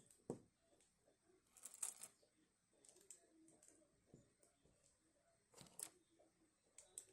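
Faint clicks and short rustles of small plastic cube pieces being handled and snapped into place, with a sharp click about a third of a second in and scrapes near two and six seconds.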